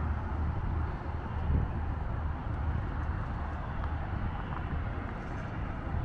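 Steady road traffic noise from a busy multi-lane road, with a low wind rumble on the microphone.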